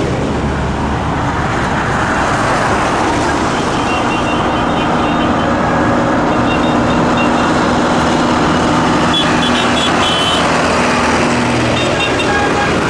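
Diesel engines of a convoy of farm tractors driving past, running steadily, with short high horn toots several times.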